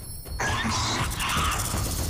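A hydra monster's shrieking cry, an animated-film creature sound effect, over background music; it drops out briefly at the start and comes back about half a second in.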